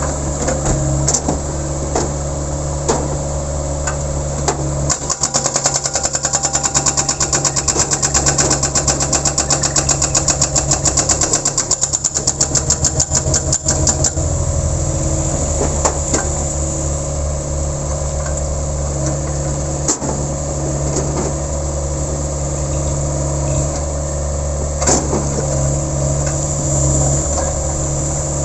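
Sunward 80E9 mini excavator's engine running steadily while its hydraulic breaker hammers. A run of rapid, even blows starts about five seconds in and stops about halfway through, followed by engine running with a few single knocks.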